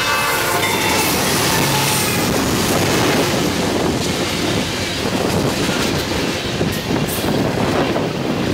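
Freight cars rolling past close by: a steady rumble and rattle of steel wheels on the rail.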